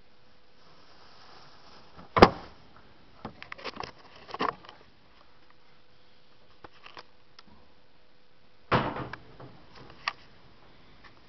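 A sharp bang about two seconds in, a scatter of lighter clicks and knocks, then a second heavy thump with a short rattle nearly nine seconds in and one more sharp click a second later.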